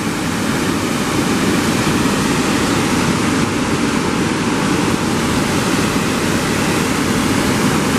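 Blackwater Falls, a broad waterfall on the Blackwater River, pouring over a rock ledge into the pool below: a loud, steady rush of falling water with no let-up.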